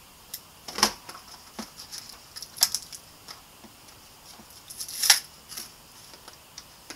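Hands pulling an MP3 player out of its packaging, the packaging crinkling and clicking in scattered bursts. The loudest handling noises come about a second in, just before three seconds and around five seconds.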